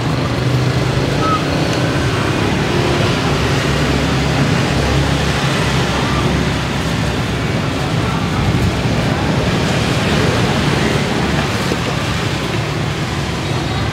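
Steady traffic noise of a busy city street, an even, unbroken wash of passing vehicles.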